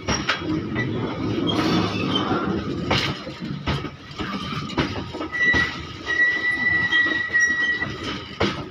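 Loaded open freight wagons of a long goods train rolling past, wheels clattering irregularly over the rail joints. A high steady squeal comes in a little past halfway and lasts about two and a half seconds.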